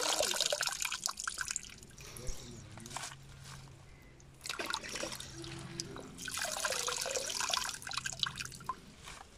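Water splashing and dripping back into a bucket as handfuls of washed, chopped spinach leaves are lifted out, in bursts: one at the start, a short one about halfway and another about two-thirds of the way through.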